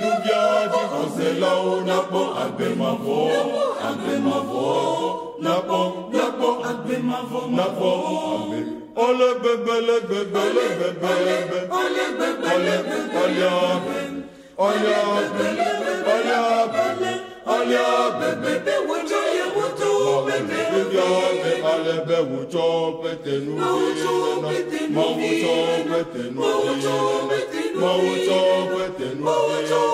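Mixed four-part church choir (soprano, alto, tenor, bass) singing unaccompanied in Ewe, a choral setting of John 3:16, in quick repeated syllables, with a few brief breaks between phrases.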